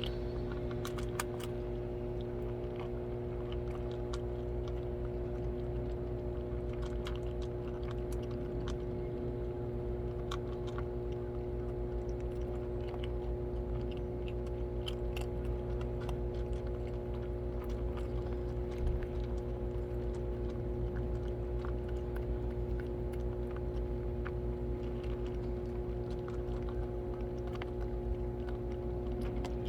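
Cats eating, with scattered small crunching clicks of chewing, over a steady mechanical hum.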